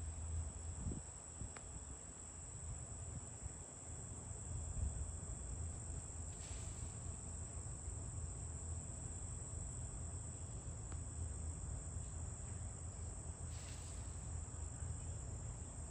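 Crickets chirring steadily at a high pitch, over a low rumble of wind or outdoor background.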